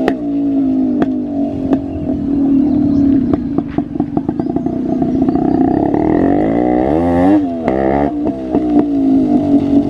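Yamaha RX135 two-stroke single-cylinder engine running loud through a cat silencer with its muffler insert removed, ridden on the road. It holds a steady note, revs up and back down about two-thirds of the way in, and has scattered sharp pops throughout.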